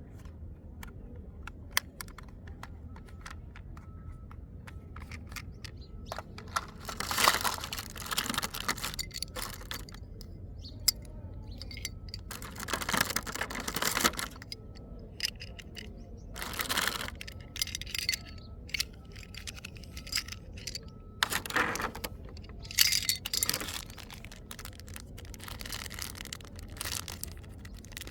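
Handling of plastic toy-train parts and their packaging: many small plastic clicks and taps, with several bursts of rustling about a second or two long, as of plastic wrap or bags being pulled open.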